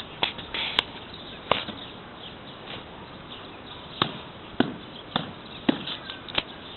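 A series of about eight sharp knocks at irregular intervals, some close together.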